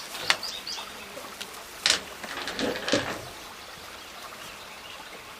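Small birds chirping a few times near the start, and three sharp knocks about a second apart, the loudest near the middle. After that only a faint, steady outdoor background.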